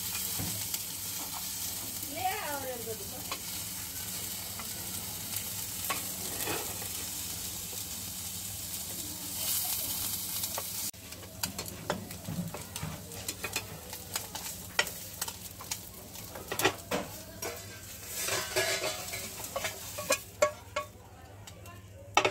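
Small fish dry-frying in a nonstick pan without oil, sizzling steadily, while a metal spatula scrapes and taps the pan as the fish are turned. About halfway through the sizzle drops off suddenly, and the spatula's scrapes and clinks on the pan become the main sound.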